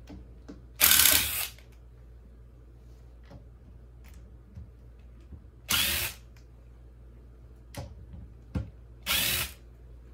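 Cordless drill-driver with a 3 mm hex bit spinning out bolts in three short runs, the first about a second in and the loudest, with small clicks between the runs.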